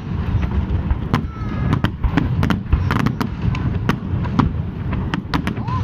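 Fireworks display with aerial shells bursting: many rapid sharp bangs and crackles over a continuous low rumble.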